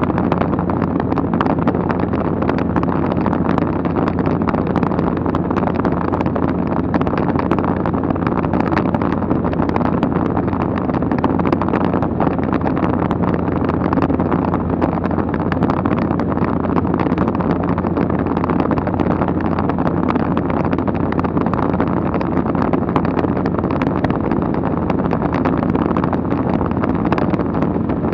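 Steady cabin noise of a low-flying aircraft in flight: a constant engine drone with wind noise, unchanging throughout.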